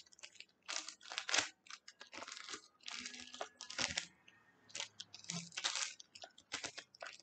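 Thin plastic bag crinkling and rustling in irregular bursts as it is handled and pressed into shape.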